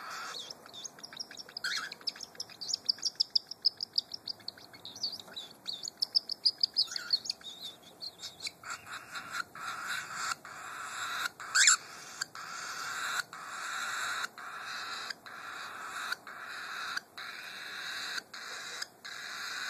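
Baby cockatiel chick giving begging calls while its mother feeds it by regurgitation. It starts with a fast run of short high chirps, then shifts to a raspy, hissing call repeated about once a second, with one louder squeak near the middle.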